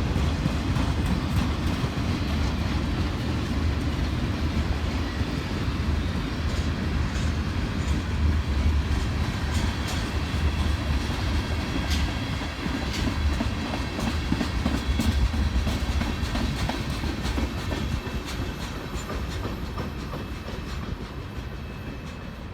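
Freight cars of a mixed freight train rolling past, a steady low rumble of steel wheels with repeated clicks over the rail joints and a few thin high squeals, easing off a little near the end.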